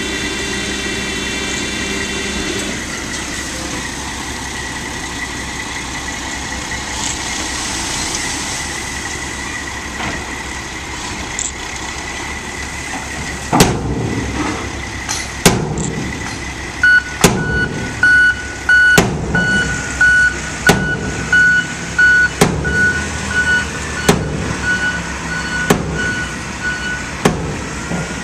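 Diesel engine of a Mack dump truck running while its raised bed tips out gravel, with a pitched whine for the first couple of seconds. About halfway through, loud bangs start and come roughly every one and a half to two seconds. A backup alarm beeps evenly through the last ten seconds or so.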